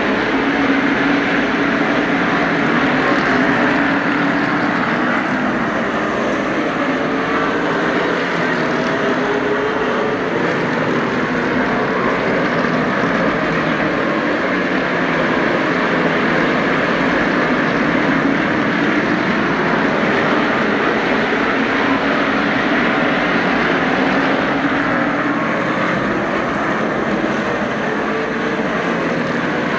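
A pack of NASCAR Cup Series stock cars racing, their 358-cubic-inch pushrod V8 engines running loud and unbroken, the pitch rising and falling as the cars come off and into the turns.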